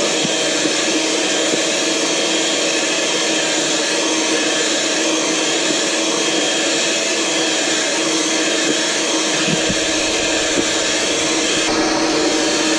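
Electric hand mixer running steadily, its beaters whisking egg whites in a stainless steel bowl into a foam for meringue.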